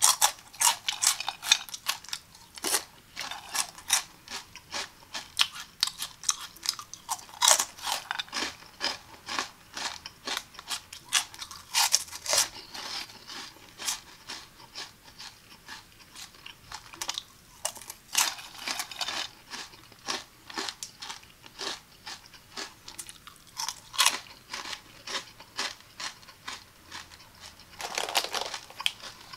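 Cheetos corn snacks crunching and crackling in an irregular, rapid run of crisp crunches, with a denser, fuller crunch near the end.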